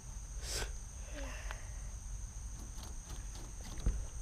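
A rabbit crunching on a celery stalk, a few crisp bites at uneven intervals, over a steady high drone of crickets. A dull thump comes just before the end.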